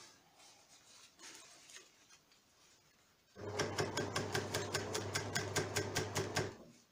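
An overlocker (serger) stitching through layers of jacket fabric: after a few quiet seconds it starts up and runs for about three seconds with a steady hum and a regular clicking about five times a second, then stops sharply.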